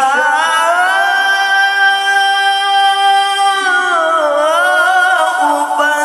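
Man's solo voice chanting the Quran in the ornamented mujawwad style, with no instruments. It rises into one long held high note, then glides down and climbs back in winding melismas.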